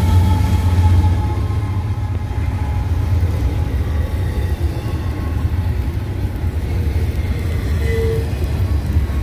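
Freight train rolling past with a steady low rumble. Faint high tones from the train fade out within the first second.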